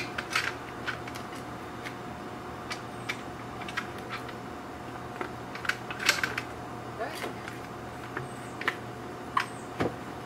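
Scattered clicks and taps of straps, buckles and rack hardware being handled as a kayak is strapped into a Yakima Showdown load-assist roof rack, over a steady low hum.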